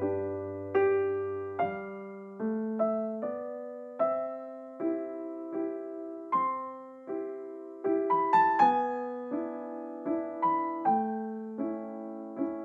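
Background music: a slow piano melody. Single notes are struck roughly once or twice a second and left to fade, over a low bass note near the start.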